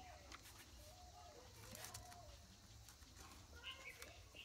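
Near silence: a faint steady low hum, a few light clicks, and faint wavering chirps.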